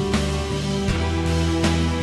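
Background music: sustained chords over a steady beat, with a sharp percussive hit about every three-quarters of a second.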